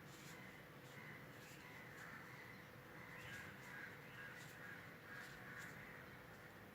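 Faint crows cawing repeatedly in the background, short harsh calls every second or so, with a few faint clicks.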